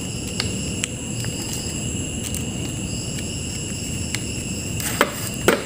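A few light clicks and taps as a flat ribbon cable is pushed and seated in its connector on a TV panel board, the sharpest two near the end, over a steady high-pitched chirring of crickets.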